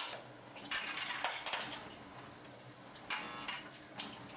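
Electromechanical works of a 1960s cigarette vending machine: a click, then short rattling buzzes about three and four seconds in, over a faint steady low hum, as a selection is made and the machine starts its vend cycle.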